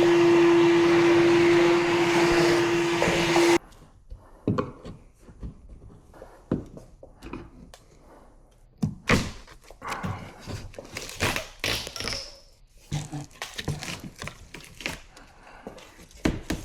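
A handheld power tool runs loud and steady with a constant hum, then cuts off suddenly about three and a half seconds in. It is followed by irregular knocks, taps and clicks of tools and parts being handled.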